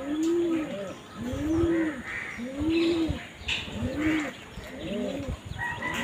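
A dove cooing in a steady series of low, arched notes, one about every second and a quarter. A thin, steady high tone starts near the end.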